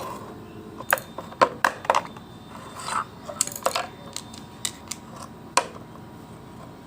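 Scattered clicks and knocks of hard plastic and metal parts being handled as an electric iron's handle is opened up, about ten sharp taps over several seconds.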